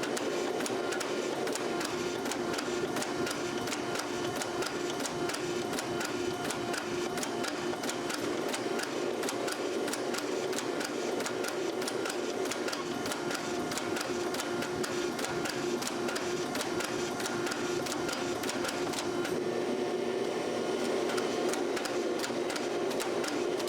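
A workshop machine running steadily: an even hum with fast, irregular clicking over it.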